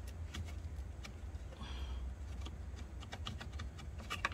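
Irregular light clicks and taps of hand tools and engine parts being handled, with a brief scrape about two seconds in, over a steady low hum.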